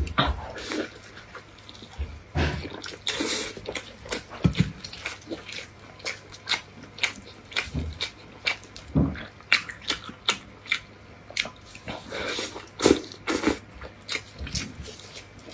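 Close-miked eating sounds: wet, sticky chewing, lip-smacking and soft bites into saucy food, a rapid, irregular run of sharp mouth clicks with a few duller thuds.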